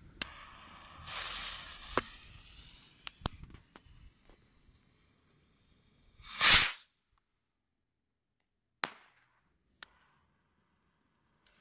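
Fireworks rocket being lit: a lighter clicks, the fuse hisses for about a second, and a few more small clicks follow. About six seconds in, a loud half-second rush as a rocket takes off, then two more lighter clicks as the next rocket is lit.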